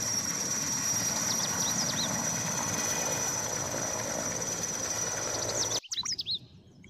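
Erickson S-64 Air-Crane heavy-lift helicopter lifting off, its twin turboshaft engines and rotor running as a broad rush of noise with a steady high turbine whine. The sound cuts off suddenly near the end, leaving faint bird chirps.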